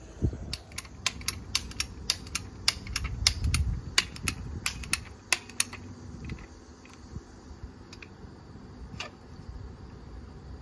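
Hand lever swaging tool working the end of a copper refrigerant line: a quick run of sharp clicks, about four a second, for some five seconds, then a few scattered clicks.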